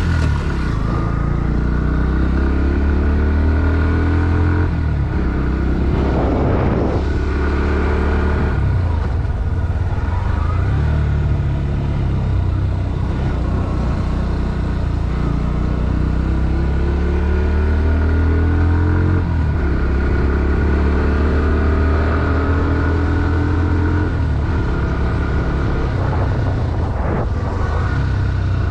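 Bajaj Pulsar NS160's single-cylinder four-stroke engine pulling hard. Its pitch climbs through the revs and drops back at each gear change, several times over.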